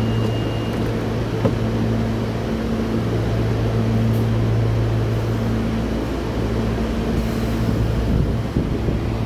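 SEPTA Silverliner V electric multiple-unit train standing at the platform, its onboard equipment giving a steady low electric hum over a wash of noise. A short high beep sounds right at the start.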